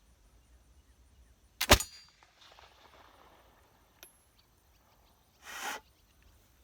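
A stainless-steel 1733 Navy model flintlock pistol firing once: a short crack and, a split second later, a much louder bang, the priming flash in the pan setting off the main charge. A short, softer burst of noise comes near the end.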